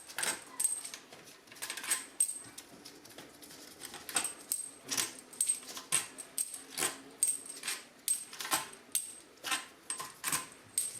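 Irregular sharp metallic clicks and taps, a few each second, some ringing briefly, from hand tools, screws and small metal parts being handled while a transmission valve body is taken apart.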